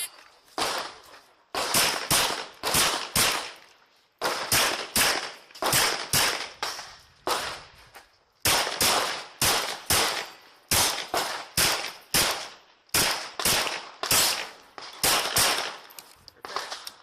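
A pistol fired in quick strings of sharp shots, roughly two to three a second, about thirty in all, with brief pauses between strings as the shooter works through a match stage.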